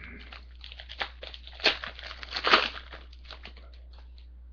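Trading cards and a foil pack wrapper being handled: a run of crinkles and rustles, loudest about one and a half and two and a half seconds in.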